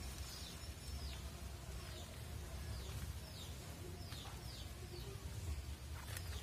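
Small birds chirping: short, high notes that slide downward, one or two a second. A low rumble runs underneath.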